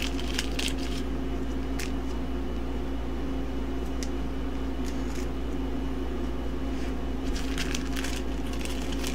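Faint rustles and light crinkles of clear plastic card sleeves as trading cards are slid into them, over a steady low background hum.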